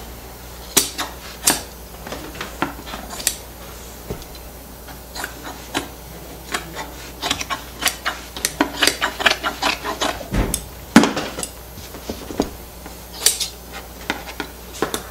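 Upholstery shears trimming excess fabric around a plywood seat board: irregular snips and metallic clicks, bunched in quick runs in the later part. There is a heavier knock about ten seconds in.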